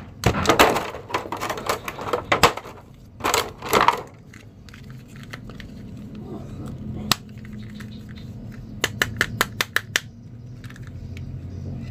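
Clear plastic blister packaging crinkling and rustling as toy action figures are handled, then sharp plastic clicks and taps: a single click, and later a quick run of them, as a shield is fitted onto a plastic Captain America action figure.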